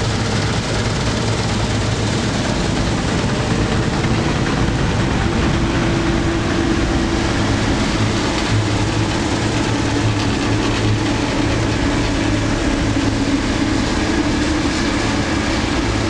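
Claas Lexion combine harvester working in wheat: a steady engine drone over the dense rush of its threshing and cutting machinery.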